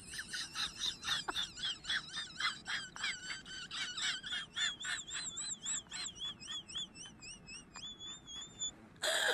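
Rapid high-pitched chirping, about five chirps a second, changing about halfway through into wavering whistled notes.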